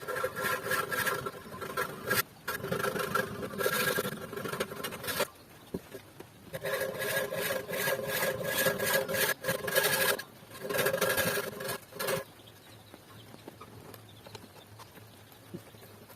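Japanese hand saw cutting wood in four runs of quick back-and-forth strokes with a faint ringing from the blade, pausing briefly between runs and stopping about three quarters of the way through.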